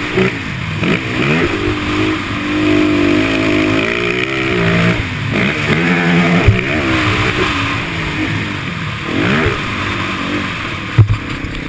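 Small quad (ATV) engine ridden hard on a dirt track, its pitch repeatedly climbing and dropping as the throttle is opened and shut, holding high revs for a couple of seconds in between, with wind rushing over the microphone. A sharp knock comes in the middle and another near the end.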